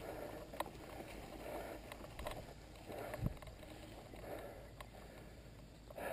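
Soft, heavy breathing of a rider catching breath close to a helmet-mounted camera, coming in regular puffs, with a few faint clicks and a low thump about three seconds in.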